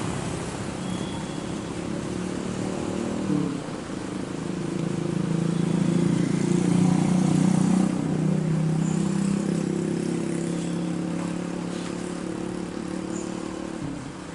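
Jet engines of a Boeing 737 climbing out after takeoff: a steady drone with a low hum that swells to its loudest about halfway through, then slowly fades as the airliner moves away.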